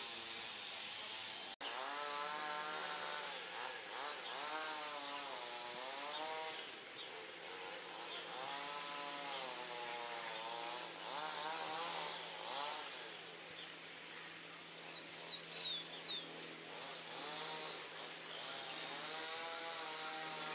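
A small engine revving up and down again and again, over a steady low hum. A few short high chirps come about three-quarters of the way through.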